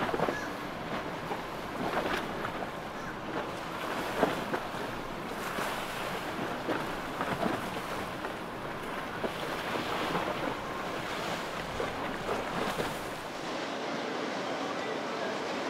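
Open water sloshing and splashing, with wind buffeting the microphone and irregular sharper splashes every few seconds.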